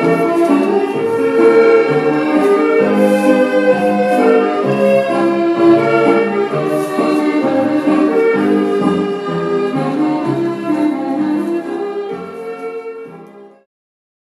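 Scottish country dance music for a strathspey, with several instruments playing a melody over chords, fading out and stopping about a second before the end.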